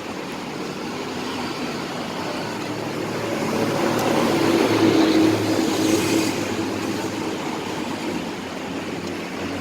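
Street traffic noise, with a vehicle passing that grows louder toward the middle and then fades.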